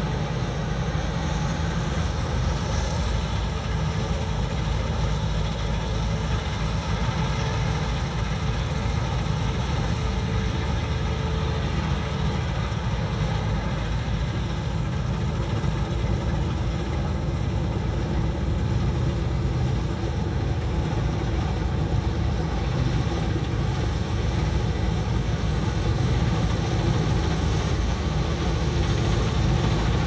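Sampo-Rosenlew 2055 combine harvester running steadily as it harvests barley, a continuous engine and threshing drone that grows somewhat louder over the last few seconds as the machine comes closer.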